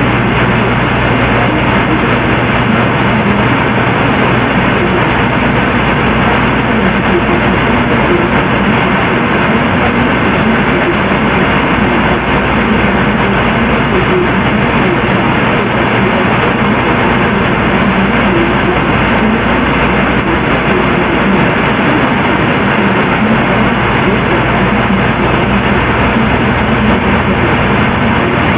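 Loud, steady static-like hiss and rumble with a faint low hum underneath, dull and muffled with no high end, unchanging throughout.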